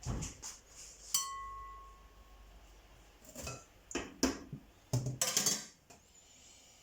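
Kitchen clatter of pots and utensils: a sharp clink about a second in that rings on briefly, then several separate knocks and a short rattle near the end.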